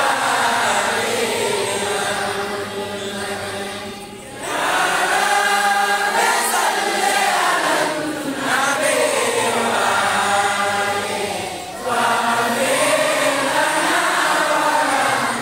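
Men's voices chanting a religious invocation in long, drawn-out phrases, with short pauses about four, eight and twelve seconds in.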